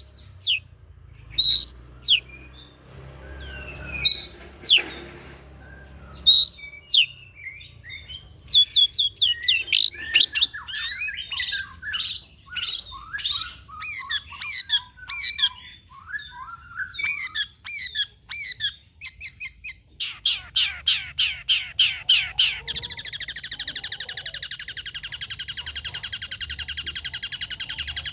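Long-tailed shrike (cendet) singing a lure song. It starts with sharp, downward-sliding high notes, moves into fast rippling trills, and ends about 23 seconds in with a dense, harsh, buzzing rattle.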